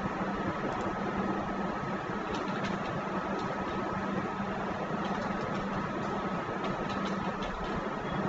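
Steady hiss and low hum of a recording's background noise, with a faint steady high tone running through it. A few faint keyboard clicks come through in the middle, as a word is typed.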